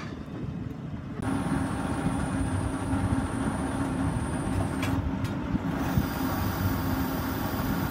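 Tractor engine idling, a steady hum that sets in abruptly about a second in.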